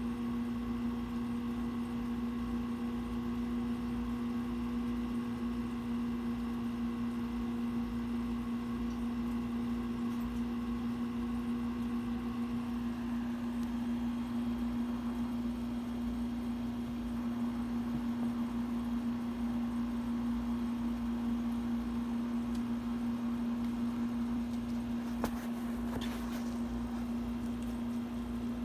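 A steady electrical hum with a constant pitch and a low rumble underneath, and a single faint click near the end.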